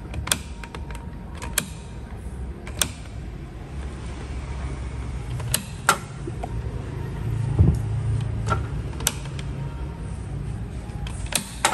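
Ryobi 18V cordless miter saw clicking several times as its trigger is worked, without the motor starting: the battery fitted is flat. A low steady hum sits underneath.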